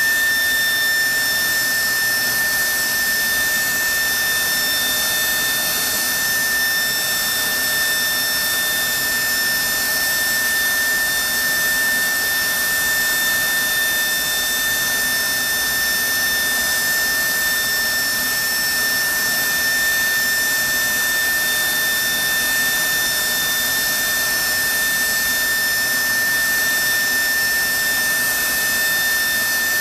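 General Electric F110 afterburning turbofan running steadily in an engine test cell: a strong, constant high-pitched whine over steady rushing air noise.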